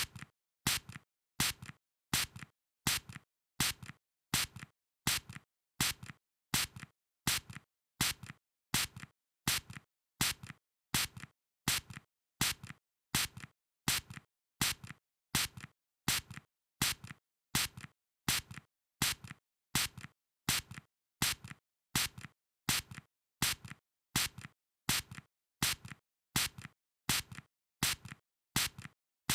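Spray squirted in short, quick bursts, each a brief hiss, repeating steadily about three times every two seconds, with louder and weaker bursts alternating.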